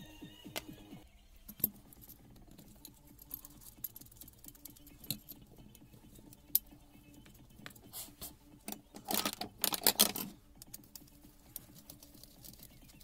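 Light clicks and knocks of small metal parts and hand tools handled on a wooden workbench during motor disassembly, with a denser clatter of quick clicks lasting about a second and a half, about nine seconds in.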